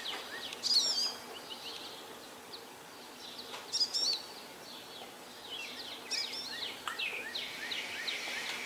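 American goldfinch twittering: short bursts of high, warbling chirps about a second in, around four seconds, and again between six and seven seconds, over a steady background hiss.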